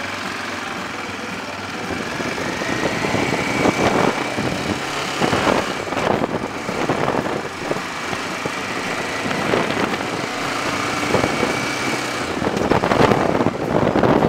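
Motorcycle riding at road speed: the engine runs steadily under a thin whine, with several louder gusts of wind noise.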